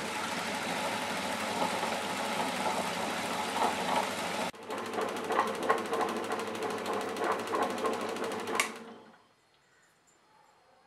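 Tabletop wet grinder running: its electric motor hums steadily under the rough grinding noise of two stone rollers turning in the drum as they grind soaked rice into batter. In the second half there are rapid irregular clacks, and the machine stops about two seconds before the end.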